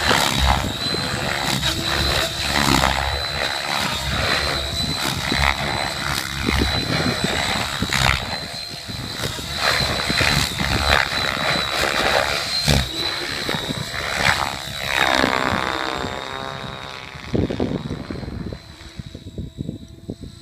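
Align T-Rex 700E DFC electric RC helicopter flying aerobatics: rotor blade rush in repeated surges over a steady high whine. The sound thins and fades over the last few seconds as the helicopter climbs away.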